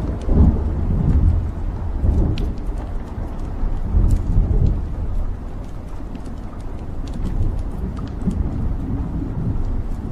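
Wood fire burning in a fireplace: a low rumble of flames that swells and eases, with scattered sharp crackles and pops from the burning logs.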